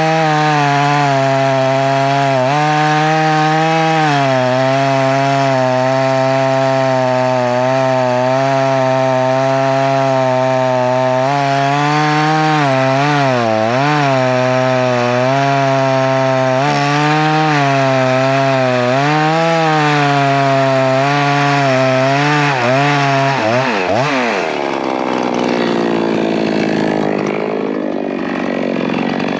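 Two-stroke chainsaw running at high revs while cutting wood, its pitch dipping several times as the chain loads in the cut. About 24 seconds in the revs fall away, then climb again near the end.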